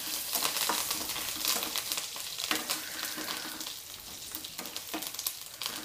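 Onions, garlic, dried red chillies and freshly added curry leaves sizzling in hot oil in a nonstick frying pan while a flat spatula stirs and scrapes them: a tempering being fried. The frying runs under the repeated scrape and clatter of the stirring.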